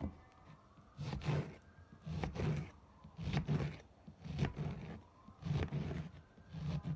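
Six scraping strokes repeated about once a second, beginning about a second in.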